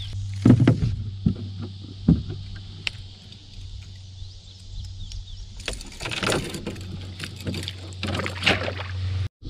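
Knocks against a canoe's hull, then rustling and handling noise as a small fish is unhooked and strung, over a steady low hum.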